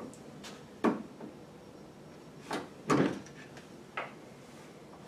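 Short clunks and clicks of a reloading press and brass cases as fired .223 Rem cases are run up into a Redding Instant Indicator die one at a time and taken out. There are four main knocks, the loudest about three seconds in.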